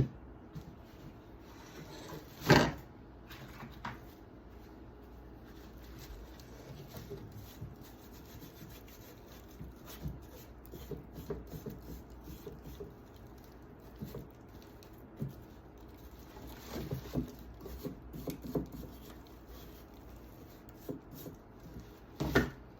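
Quiet scraping and rubbing from cleaning a chainsaw by hand, with a sharp knock about two and a half seconds in and another near the end as parts are handled.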